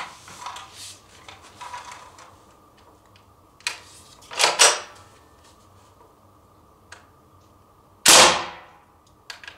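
CO2-powered Thompson M1A1 replica BB submachine gun fired in single shots: several sharp pops a second or more apart, the loudest about eight seconds in.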